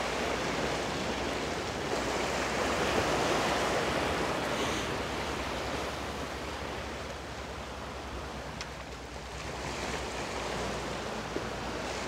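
Sea surf washing against the rocks of a breakwater, a steady rushing that swells, eases off past the middle and builds again near the end.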